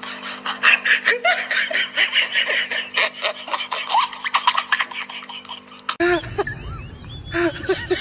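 People laughing in quick bursts over a steady hum; about six seconds in the sound cuts abruptly to another recording with short, rising-and-falling pitched calls.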